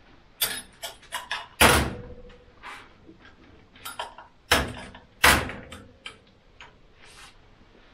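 Metal safe-deposit box drawers and doors being handled in a vault: a run of clicks and knocks, with three louder metal clanks about a second and a half in, at about four and a half seconds, and just after five seconds. The loudest clanks ring briefly.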